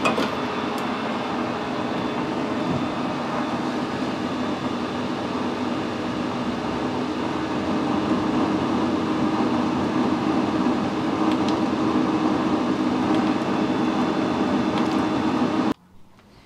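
Metal lathe running steadily while a threading insert takes a final pass cutting a 6 mm thread on a stud. The hum gets slightly louder about halfway through and cuts off suddenly near the end.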